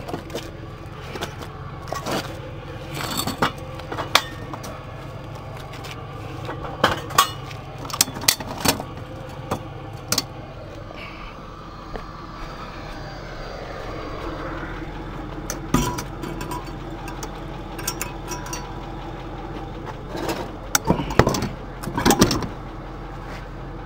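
A truck engine idling steadily under scattered metallic clanks and knocks from tow dolly gear being handled.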